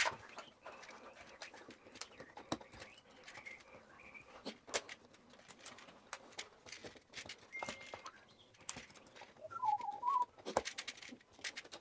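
Scattered light clicks and taps as ceiling light fittings are unscrewed and taken down. A short wavering whistle-like call comes near the end.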